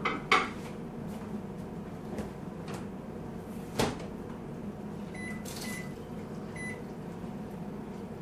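A few sharp clicks and knocks, the loudest about a third of a second in and another at about four seconds, then three short high electronic beeps: a digital slow cooker's control panel beeping as it is switched on and set.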